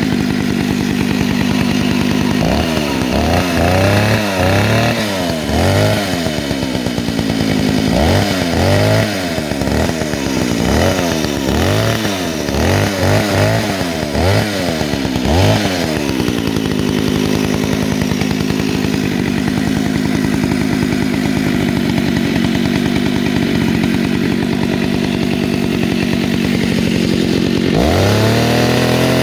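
Old Stihl two-stroke chainsaw idling, then revved in a long run of quick throttle blips that rise and fall, settling back to a steady idle. Near the end the throttle opens and the engine holds at a high rev.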